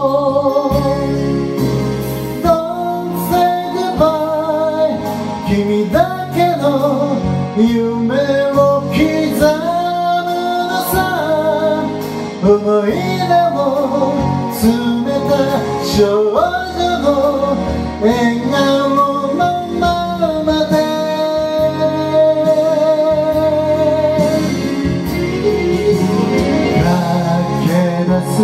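Cover of a Japanese pop ballad: a solo voice singing the melody over a backing track with guitar.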